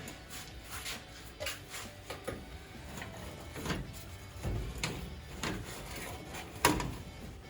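A series of irregular knocks and clatter, with one sharp knock shortly before the end the loudest.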